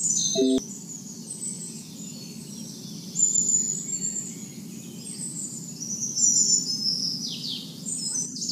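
Birds chirping, with short high chirps and a few falling whistles, over a steady low background rumble.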